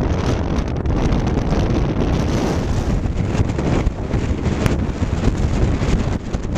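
Wind blowing across a pocket camcorder's microphone on the open deck of a moving ferry: a loud, steady rush heaviest in the low end, with the boat and water underneath it.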